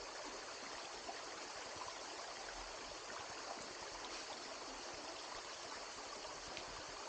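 Stream water running over rocks: a steady, even rush with no change.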